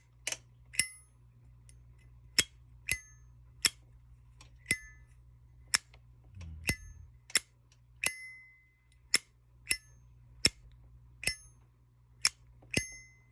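Zippo lighter's hinged metal lid flipped open and snapped shut over and over: about sixteen sharp metallic clicks, each with a short bright ring, every half second to a second.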